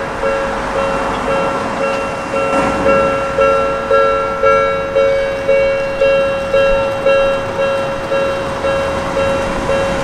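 Japanese railway level-crossing warning bell ringing its repeated two-tone 'kan-kan' clang, about two strikes a second, as the barriers lower. It warns that a train is approaching.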